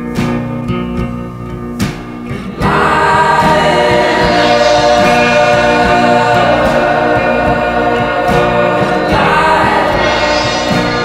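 Background song: plucked guitar notes, then a layered choir of voices comes in suddenly about two and a half seconds in and carries on much louder, with sustained chords.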